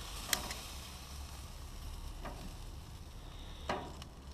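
Boiled, olive-oiled pig snout sizzling on a hot grill grate, with sharp metal clicks of stainless tongs against the grate, loudest about a third of a second in and near the end.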